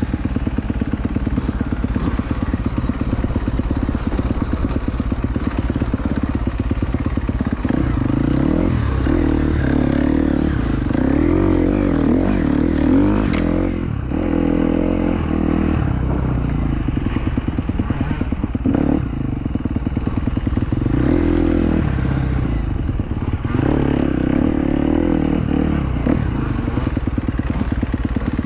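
Dirt bike engine running hard on a trail ride, its pitch climbing and dropping over and over as the throttle is opened and closed.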